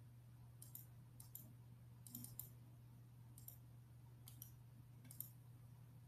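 Faint computer mouse clicks, about eight of them spread over the few seconds, some in quick pairs, over a low steady hum.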